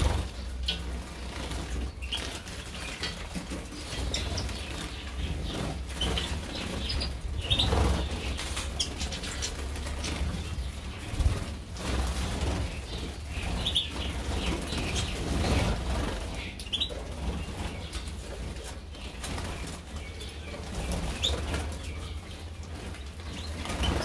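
Small finches, European goldfinch and Eurasian bullfinch among them, bathing in a shallow water tray: repeated short bursts of wing-fluttering and splashing, with a few brief high chirps.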